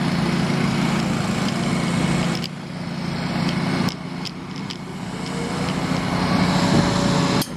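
Heavy diesel construction machinery running steadily, with a few sharp knocks and a faint whine rising in the second half.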